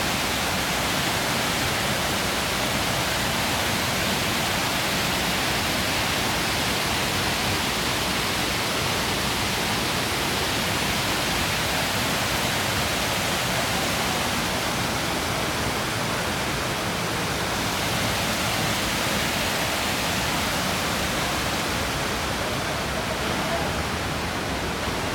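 Waterfall's steady rushing of falling water.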